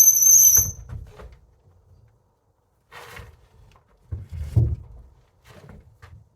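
A sharp, steady high-pitched squeal lasting about a second at the start, then a few dull knocks and thuds, heaviest about four and a half seconds in.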